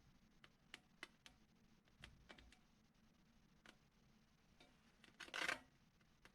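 Near silence with faint handling noise: a few light ticks, then one short rub about five seconds in.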